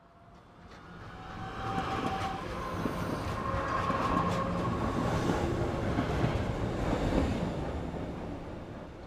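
Istanbul street tram running past on its rails: a rumble that swells over the first few seconds and fades near the end, with a steady whining tone and a few sharp rail clicks.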